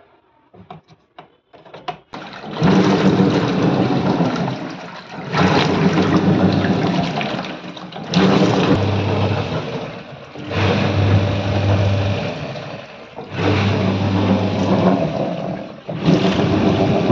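A few light clicks, then about two seconds in a semi-automatic washing machine's wash motor starts churning water with a low hum. It stops and restarts about every two and a half seconds as the agitator reverses direction.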